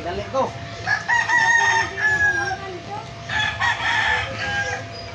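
A rooster crowing twice, each crow a long held call lasting over a second.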